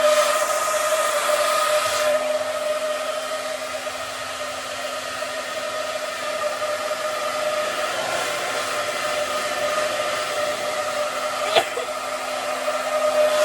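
Hand-held hair dryer running steadily, an airy rush with a steady motor whine in it; a short click sounds near the end.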